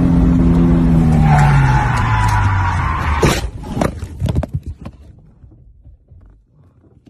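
Car crash: vehicle noise with a falling tone and a tyre squeal under hard braking, then a sharp impact about three seconds in. A few more knocks and clatter follow as the sound dies away.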